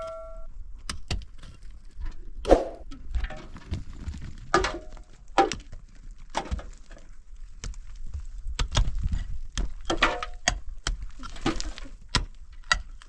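Irregular knocks and clatter, like wood being handled or struck, coming at uneven intervals over a low rumble.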